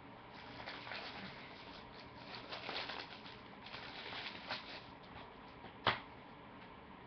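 Faint crinkling and rustling of plastic as DVD cases are unwrapped and handled, with a few sharp clicks, the loudest about six seconds in.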